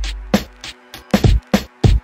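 Instrumental hip hop beat: sharp drum-machine hits several times a second over a deep bass note that sounds at the start and fades.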